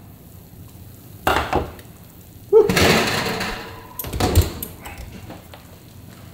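An oven being opened and a pizza pan taken out: a knock about a second in, a louder scraping rattle of the pan about a second later that dies away, then another clatter about four seconds in.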